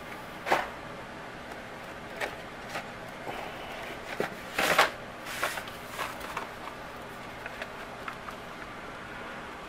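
Hot Wheels blister-pack cards clicking and rustling against one another and the cardboard case as one is drawn out of the rows, in a few scattered clicks with the loudest cluster about halfway through. A steady low hiss underneath.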